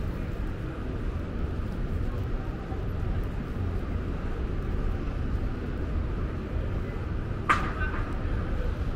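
Rainy city street at night: a steady low rumble with a light hiss over it, and one sharp click about seven and a half seconds in.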